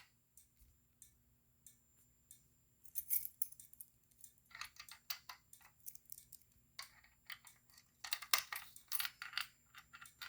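Faint clicks and small metallic rattles of a stiff key being worked in a fire alarm pull station's lock, coming in clusters and thickest near the end, over a faint steady hum.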